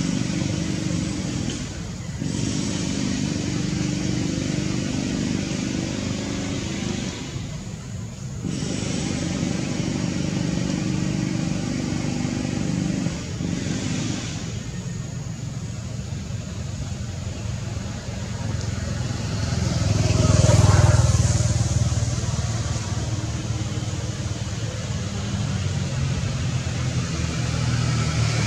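Steady engine rumble of road traffic, with one vehicle passing louder about twenty seconds in.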